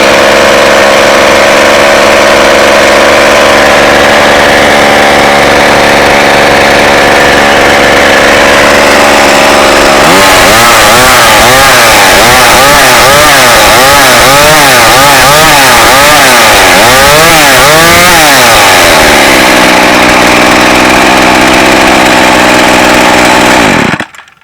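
Loud McCulloch Mac 2.0 cubic-inch mini chainsaw's two-stroke engine idling steadily, then revved up and down in quick repeated throttle blips for about nine seconds. It settles back to idle and cuts off suddenly near the end.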